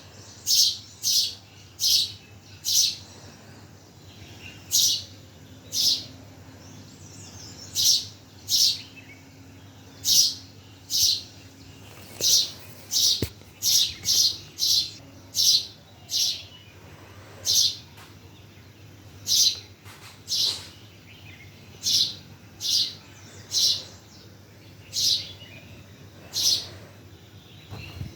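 A bird chirping repeatedly: short, loud, high-pitched calls, each dropping quickly in pitch, coming irregularly about once or twice a second, sometimes in quick pairs or runs.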